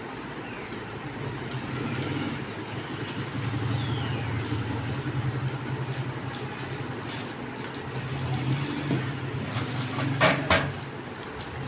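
Plastic packaging crinkling and rustling with scattered light clicks as small accessory packets are handled in a hard carrying case. Two sharp knocks come close together about ten seconds in. A steady low hum runs underneath.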